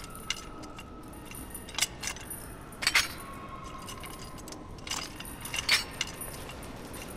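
Metal shackles clinking and rattling as a bound prisoner tugs at her restraints: a string of sharp metallic clinks, the loudest about three seconds in and again near the end.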